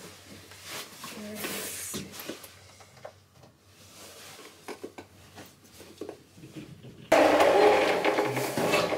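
Quiet rustling and light knocks of a coat and bags being handled. About seven seconds in, a much louder steady mechanical hum starts abruptly.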